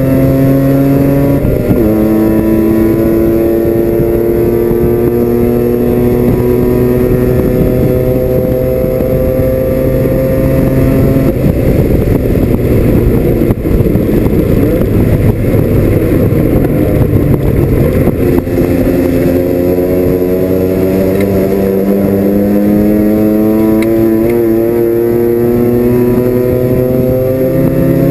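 Mazda RX-7 FC race car's 13B rotary engine, heard from inside the cabin, running hard under power with its pitch climbing slowly through each gear. It shifts up about one and a half seconds in, turns rougher and noisier through the middle, then climbs again and shifts near the end.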